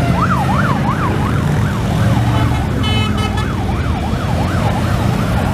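An electronic siren sweeping quickly up and down, about three rises a second, over the steady low rumble of parading motorcycles, mostly Harley-Davidson V-twin touring bikes. The siren is loudest in the first second or two, then fainter.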